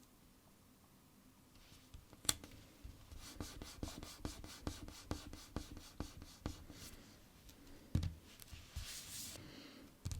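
Fingers handling stickers on a sticker-book page, heard up close. A sharp click comes about two seconds in, followed by a quick run of light taps and scratchy rubs. Near the end there is a knock and a brief rubbing sound.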